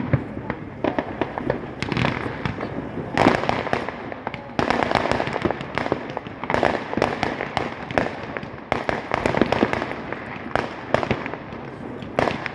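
Many fireworks going off together, a continuous run of bangs and crackles overlapping one another at uneven intervals.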